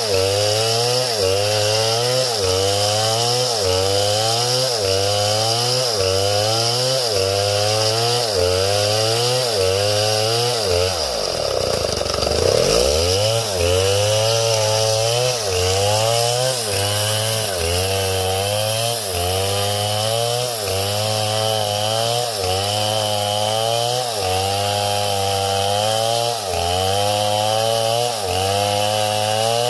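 Chainsaw engine running under load, its pitch rising and falling in a regular cycle about once a second. About eleven seconds in, the pitch sinks low and then climbs back up.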